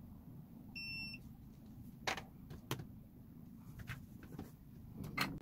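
Multimeter's continuity beeper giving one short beep about a second in as the probes touch the key's circuit board, a sign that the probed point is connected to ground (battery minus). Then a few sharp clicks and knocks from handling the probes and the small bench vise holding the board.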